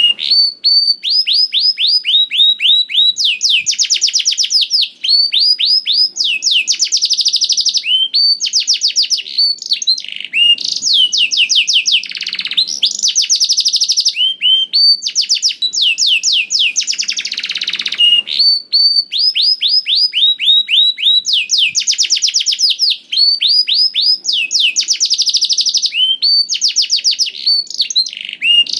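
Domestic canary singing loudly and without a break: a song of phrase after phrase of fast, rapidly repeated falling notes and trills.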